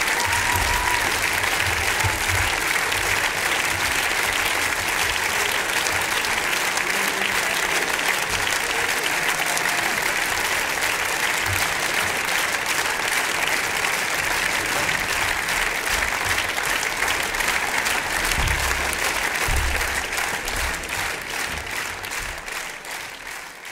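Audience applauding at the end of a live big band performance: steady, dense clapping that fades out over the last few seconds.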